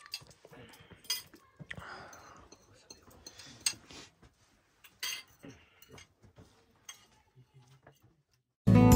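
Quiet clinks and knocks of crockery and cutlery, a handful of sharp, brief strikes a second or more apart with faint handling in between. Near the end loud music cuts in abruptly.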